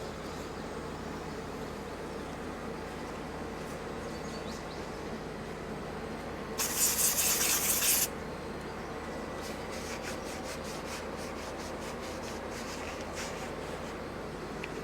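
A pressurised spray hisses once for about a second and a half, loud and sharp, over a steady background hum, followed by a run of small light clicks of parts being handled.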